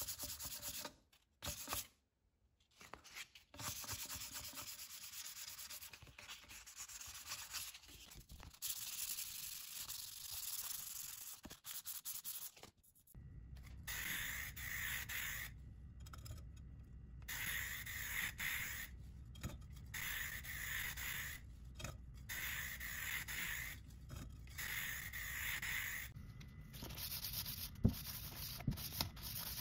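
Sandpaper rubbing back and forth over the metal barrel of an old hand air pump. About halfway through, an aerosol spray can hisses in a series of short bursts, and a couple of light knocks come near the end.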